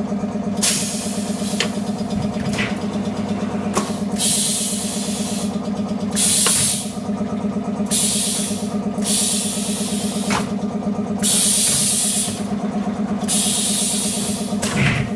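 Automatic glass cutting machine running with a steady hum, broken by repeated hissing bursts about a second long and a few sharp clicks in between.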